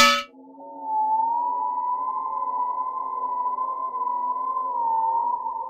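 Eerie background music: a single held, slightly wavering high tone over a steady low drone. It comes in about half a second in, after a brief loud burst at the very start.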